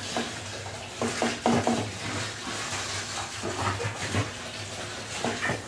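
Washing soda powder being shaken from its cardboard box into a barrel of water, with small knocks and light sloshing. A low hum runs underneath.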